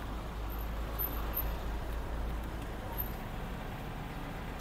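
Steady low rumble of motor-vehicle traffic, a little louder in the first three seconds.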